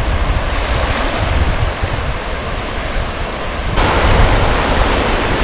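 Wind buffeting the microphone over the steady wash of surf; the water noise steps up suddenly about four seconds in.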